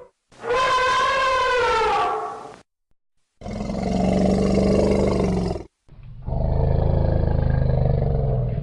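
Elephant calls: a high trumpet about two seconds long that falls in pitch, then two long low calls of about two seconds each, separated by short silences.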